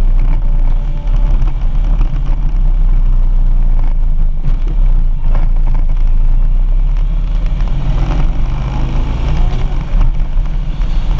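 Harley-Davidson Street Glide's V-twin engine running under way, a steady low rumble mixed with wind buffeting behind the windshield.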